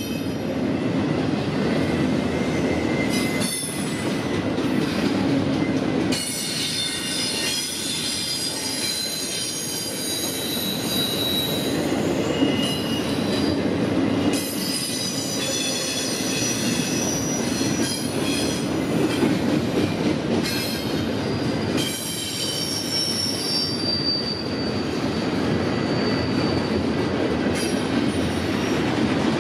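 Canadian National freight train rolling past: a steady rumble of wheels on rail, with high-pitched wheel squeal that comes and goes in several separate pitches.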